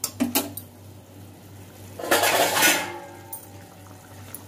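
Perforated metal skimmer spoon clinking and scraping against a metal kadhai while stirring egg curry gravy, with a few light clinks at the start and a longer, louder scrape about two seconds in.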